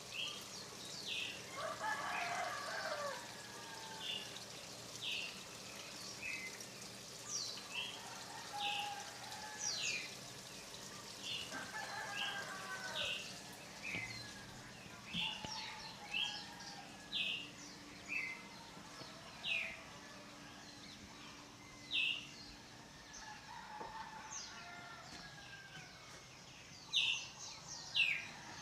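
Songbirds calling with many short, sharp, falling chirps, repeated throughout, and roosters crowing twice, once early and once near the middle, over a steady hiss of water falling into a pond.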